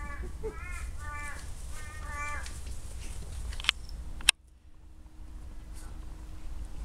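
A bird cawing repeatedly: five or so short harsh calls in quick succession over the first two and a half seconds. Near the middle come a couple of sharp clicks, then the sound drops suddenly to a quieter background with a faint steady hum.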